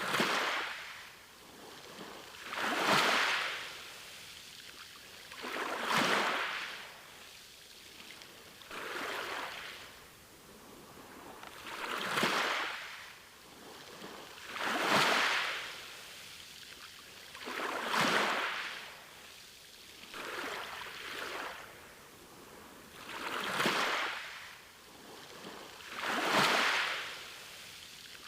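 Small sea waves washing onto a beach, one wash about every three seconds, each swelling into a hiss and falling away.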